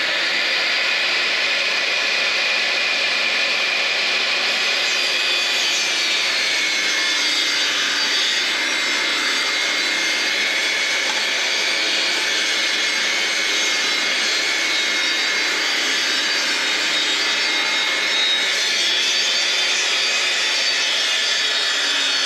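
Stanley SST1801 1800 W table saw with a 254 mm blade running at full speed, a loud steady motor whine with its pitch sagging a little at times as the blade cuts wood.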